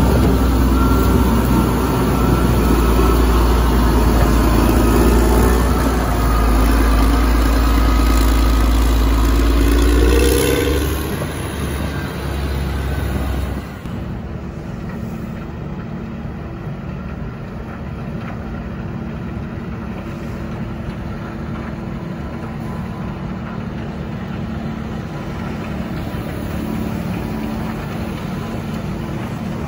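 Caterpillar 160M motor grader's diesel engine running close by as it plows snow, revving with a rising pitch before easing off. After a sudden drop it gives way to a quieter, steady engine hum.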